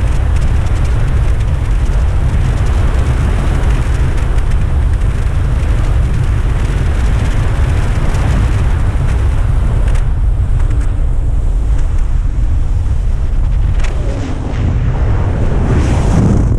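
Rushing airflow buffeting the camera microphone during a wingsuit BASE-jump flight: a loud, steady deep rumble of wind. It dips briefly near the end, then swells again.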